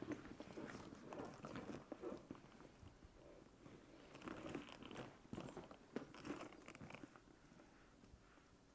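Faint rustling and light clicks of coated-canvas handbags with leather handles and metal hardware being held and shifted by hand, thinning out toward the end.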